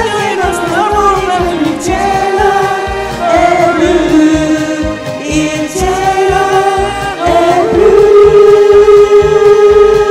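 Singing of an Italian pop song over a karaoke backing track with a steady beat. About three-quarters of the way through, one long note is held steady.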